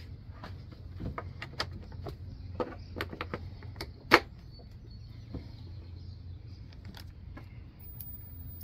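Clicks and knocks from the hard plastic Ford bed extender bracket and its latch being handled against the truck's bed wall, with a sharp clack about four seconds in. A steady low hum runs under them.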